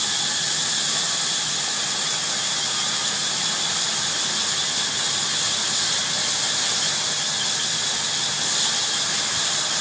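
Heavy-duty bandsaw cutting through wood, a steady high-pitched sound that holds even throughout.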